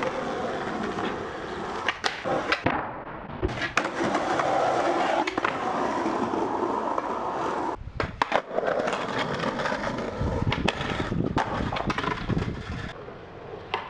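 Skateboard wheels rolling fast down a steep, cracked concrete alley: a steady rumble broken by sharp clacks, which are likely the wheels crossing cracks and seams in the pavement. The rolling breaks off briefly about eight seconds in, then starts again.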